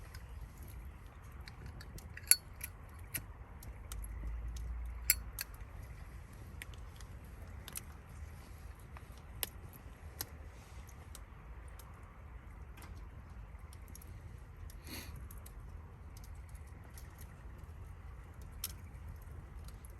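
Campfire crackling, with scattered irregular sharp pops over a low steady rush; the two loudest pops come about two and five seconds in.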